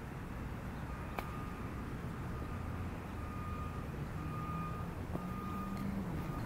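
A vehicle's reversing alarm beeping roughly once a second over a low, steady engine rumble. One sharp click about a second in, the golf club striking the ball.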